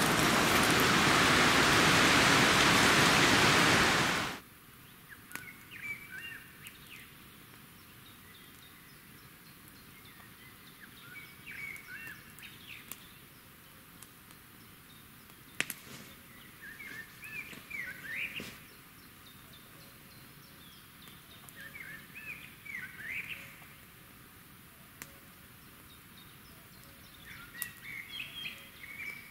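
A loud steady rushing noise that cuts off suddenly about four seconds in, then a songbird singing short chirping phrases, repeated about every five seconds against quiet forest background.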